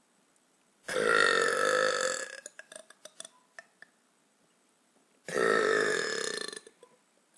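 A woman burping twice: two long, loud burps, each lasting over a second, about four seconds apart. A few small clicks follow the first.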